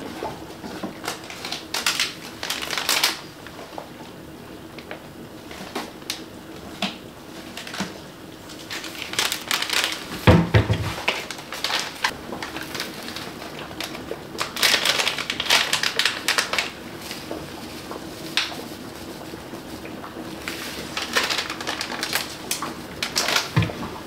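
Paper spice packets rustling and crackling as they are handled and sorted, in several short bursts, with a dull knock about ten seconds in.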